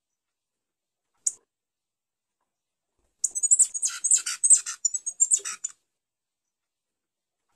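A Coryphospingus finch (tico-tico-rei) gives one short high chirp. About three seconds in, it sings a rapid, high-pitched run of quick notes lasting about two and a half seconds.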